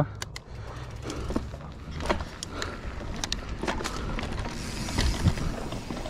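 Mountain bike rolling over a dry, rough dirt trail: tyre noise on dirt and stones with many scattered clicks and rattles from the bike over bumps, and a low wind rumble on the microphone.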